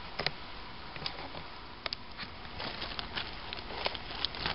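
Scattered light clicks and soft rustling as a packet of Esbit solid-fuel tablets is handled and opened.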